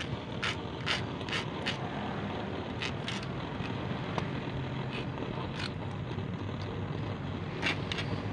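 A knife blade scraping the metal terminals of an alternator's rectifier diode plate, in about ten short, irregular strokes, to clean them for soldering. Steady background noise runs underneath.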